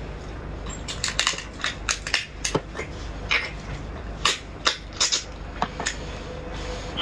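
Crab shell cracking and crunching as the legs and body are bitten and pulled apart by hand: many sharp, irregular snaps and cracks in quick succession.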